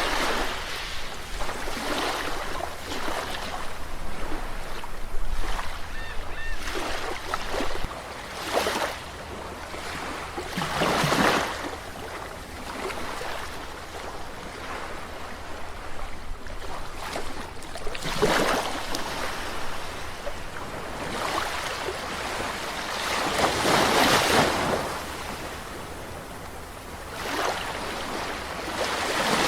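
Sea waves breaking and washing up a shore, each wave a swell of surf noise that rises and falls every few seconds, with the biggest breaks about a third of the way in, past the middle and near the end.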